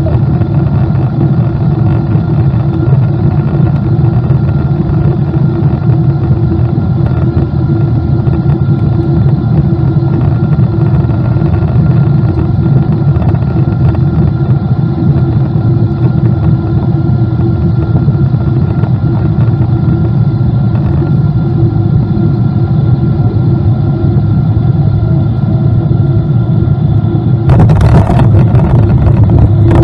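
Boeing 777-200 engine and airflow noise heard inside the cabin: a steady loud drone with a few steady humming tones. About 27 seconds in it suddenly turns louder and harsher, with a hissing, crackling rush added.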